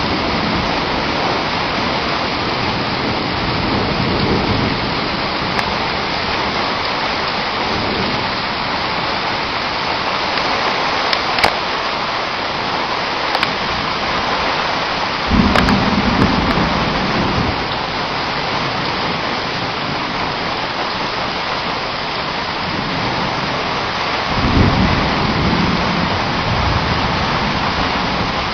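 Torrential rain pouring steadily, with low rolls of thunder, one starting about halfway through and another near the end.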